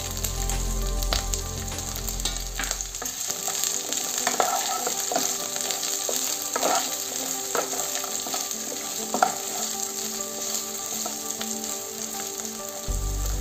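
Sliced onion, garlic, ginger and green chillies sizzling in hot oil in a nonstick kadhai, with a steady hiss. From about four seconds in, a wooden spatula stirs and scrapes the pan several times.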